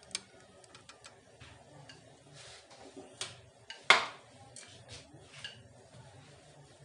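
Light clicks and taps of a wooden rolling pin and hands on a round wooden rolling board as a ball of dough is set down and rolled out, with one sharp knock about four seconds in.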